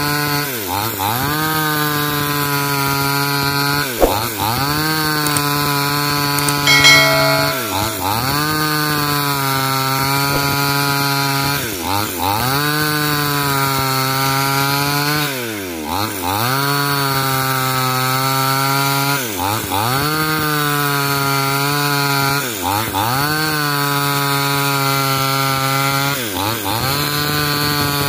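Petrol chainsaw ripping lengthwise through an old coconut palm log at full throttle. Its engine note sags and recovers about every three to four seconds as the chain bogs down in the wood and picks up again.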